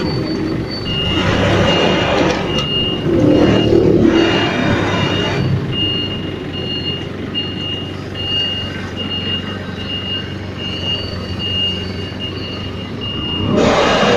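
Mitsubishi Grendia forklift's reversing alarm beeping steadily, a single high beep about every two-thirds of a second, over the forklift's engine running. Louder rushes of engine noise come twice in the first five seconds and again near the end as it works the load.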